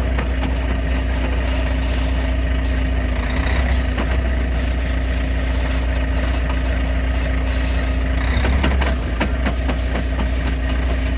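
Heavy truck diesel engine running steadily with a low rumble, which eases slightly about nine seconds in.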